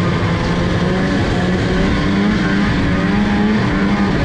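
Snowmobile engine running at a steady, fairly even speed while the sled cruises along a trail, its pitch wavering only slightly.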